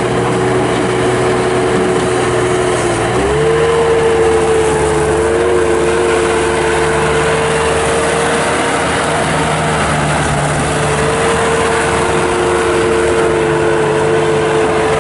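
Bobcat 863 skid steer's Deutz 1011 oil-cooled turbo diesel running steadily, with a steady whining tone over the engine note. About three seconds in, the note changes, its pitch stepping up slightly and its low end growing stronger.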